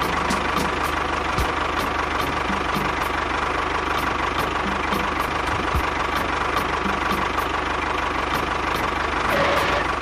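Tractor engine running steadily as the tractor drives, a continuous drone with a faint steady whine on top.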